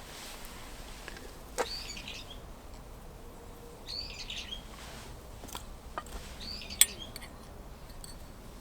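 Wild bird calls: three short bursts of chirping at intervals, with a few sharp clicks or knocks in between, the loudest near the end.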